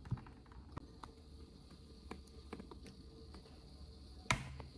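Faint scattered clicks and scratches from hands working a softened sticker off a motorcycle helmet shell, with one sharper knock near the end.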